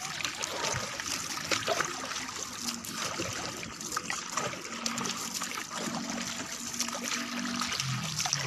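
Sea water splashing and trickling against the hull and bamboo outrigger of a moving outrigger boat: a steady rush of many small splashes.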